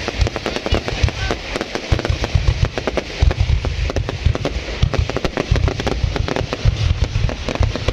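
Fireworks going off in a fast, unbroken run of many bangs and crackles, with deep thuds beneath.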